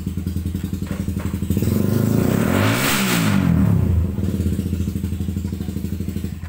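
A vehicle engine running close by with a steady, fast pulsing beat. It grows louder and brighter for a couple of seconds in the middle, then stops abruptly near the end.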